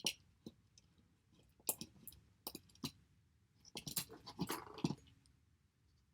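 Small clicks and light rattling from handling an old plastic Zip-A-Flint flint dispenser loaded with Zippo flints: a few separate clicks, then a quick cluster of clicks and rattles near the end.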